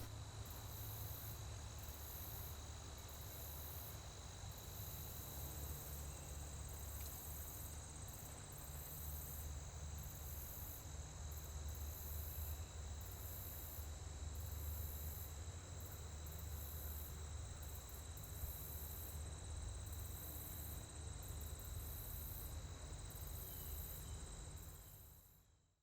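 Insects chirping outdoors in high-pitched pulses that repeat every half second or so, over a low steady rumble; the sound fades out near the end.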